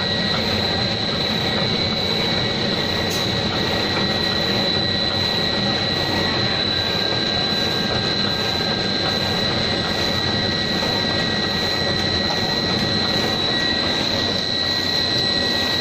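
Pet-chew extrusion line machinery running: a steady, even mechanical noise with a constant high-pitched whine.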